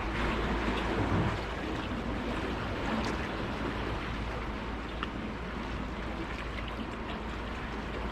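Sea water washing and surging among breakwater tetrapods, a steady rushing noise with wind on the microphone and a couple of faint ticks.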